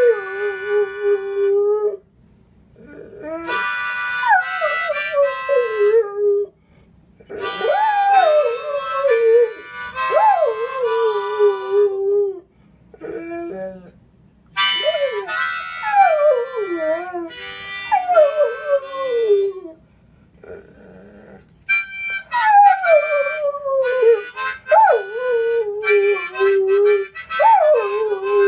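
Australian Shepherd howling along to a harmonica, a little off pitch: long howls that slide down in pitch over the harmonica's held chords, in about five phrases with short pauses between them.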